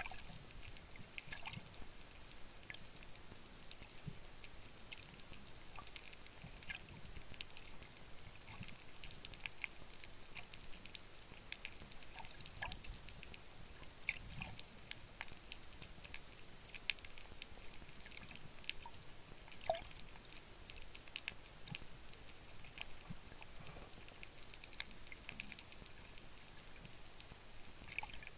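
Faint underwater crackling: scattered, irregular small clicks over a low hiss, heard through a submerged camera.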